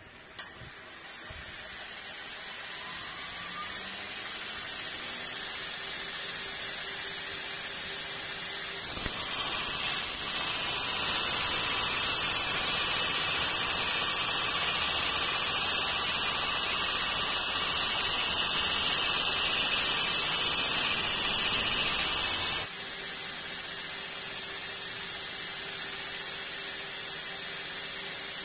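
Belt grinder running a 40-grit ceramic abrasive belt. It spins up over the first few seconds. About nine seconds in, a bar of 316L stainless steel is pressed into the belt and grinds with a loud, steady hiss for about fourteen seconds, then is lifted, and the belt runs on freely with a steady hum.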